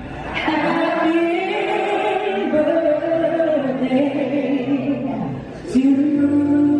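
Live Motown-style soul performance: singers holding long notes in harmony, a new held note starting after a short break near the end.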